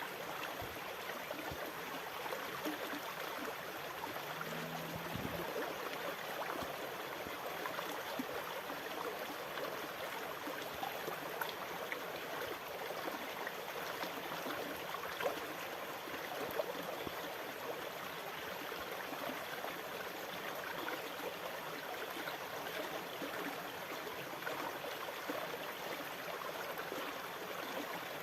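Sea water rushing and trickling at a steady level, an even fizzing wash with fine crackle and no rise and fall of separate waves.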